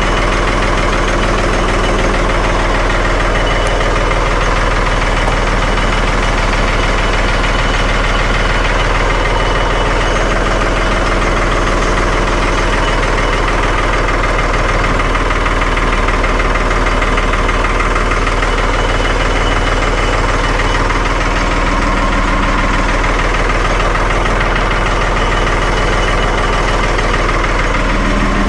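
1975 Ford 550 backhoe's diesel engine running steadily at a constant speed.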